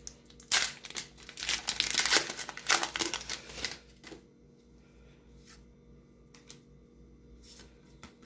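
Foil booster pack wrapper being torn open and crinkled for a few seconds, then only faint ticks of handling.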